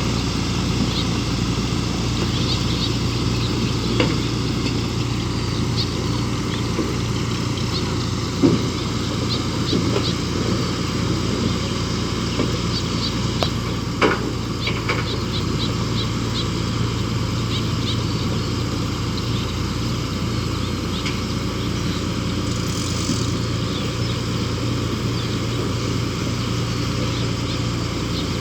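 A large engine running steadily, with scattered clicks and knocks on top, the sharpest about eight and fourteen seconds in.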